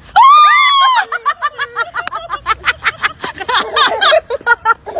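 A loud high shriek lasting under a second, then rapid, continuous laughter, about four to five bursts a second.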